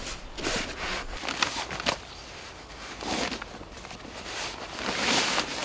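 Rustling and scuffing of fabric kit being handled on a canvas camp bed, with several sharp clicks in the first two seconds and swells of rustling about three and five seconds in.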